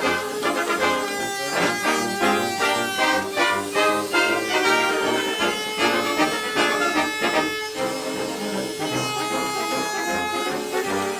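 Background music: a lively tune led by brass instruments.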